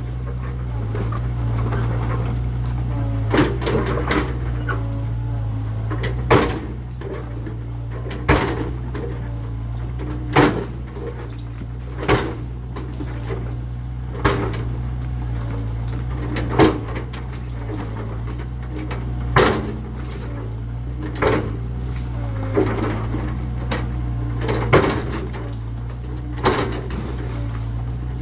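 Mini excavator engine running steadily, with sharp knocks and crashes about every two seconds as the machine breaks up the old building.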